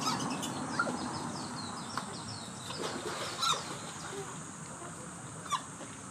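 Animal calls: a quick run of short, high chirps over the first few seconds, and three sharp, short calls about a second, three and a half seconds and five and a half seconds in.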